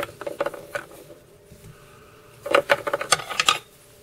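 Quick clicks and taps of small fly-tying tools being handled at the vise while the red thread head is finished off. They come in two short clusters, a brief one at the start and a denser run about two and a half seconds in.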